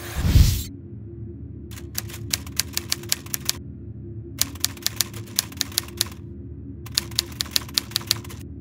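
Typewriter keystroke sound effect: three runs of rapid sharp key clicks, each run lasting one to two seconds, as lines of text type onto the screen. It opens with a short, loud, deep rushing burst, and a steady low hum lies underneath throughout.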